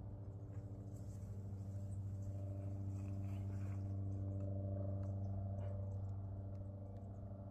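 A steady low mechanical hum, like a motor running, that swells slightly louder through the middle and then eases back, with a few faint ticks over it.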